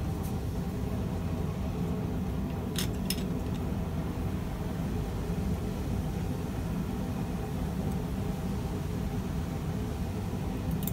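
A forge running with a steady, even roar and low hum, with two light metallic clinks about three seconds in.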